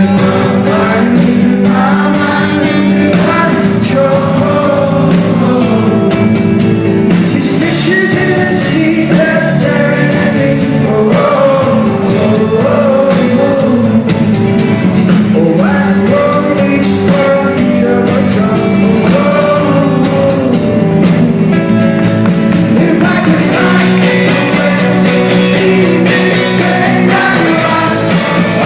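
Live band performing a rock song: a lead singer over steady instrumental backing.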